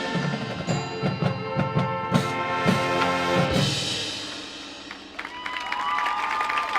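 High school marching band's brass and drumline playing the closing chords of its show, with rhythmic drum hits, stopping about three and a half seconds in. After a short dip the crowd starts to cheer and clap near the end.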